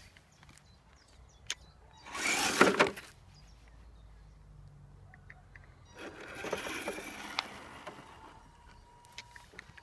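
Axial SCX10 RC crawler driving over loose sand and dirt: its small electric motor and drivetrain running while the tyres scrabble through the sand, in two bursts, a short one about two seconds in and a longer one about six seconds in.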